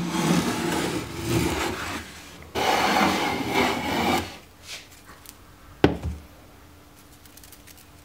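Metal bench hand plane shaving wood: two stretches of planing strokes, the second beginning about two and a half seconds in, then a single sharp knock about six seconds in.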